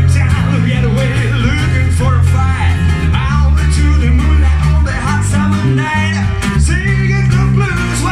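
Live acoustic duo music: a strummed acoustic guitar and a prominent electric bass line, with a man singing into a microphone.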